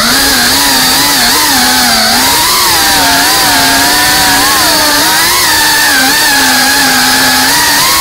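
FPV racing drone's brushless motors and propellers buzzing loudly, heard from on board. Their pitch wavers up and down with the throttle, with no cut-off.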